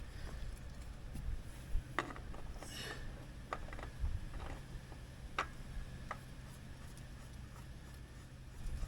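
A few light clicks and taps of tools and parts being handled during an oil and filter change, spread over a few seconds, above a faint steady hum.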